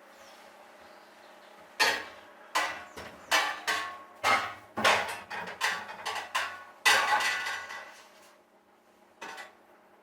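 A run of about a dozen irregular knocks and clatters of hard objects being handled or struck, starting about two seconds in and ending around eight seconds, then one more short knock near the end.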